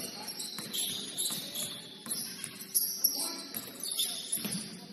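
Basketball sneakers squeaking on a hardwood court in short, shifting high chirps, with a few thuds.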